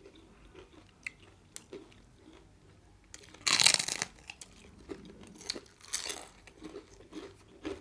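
Close-miked eating: chewing with small wet mouth clicks, and one louder burst of noise lasting under a second about three and a half seconds in.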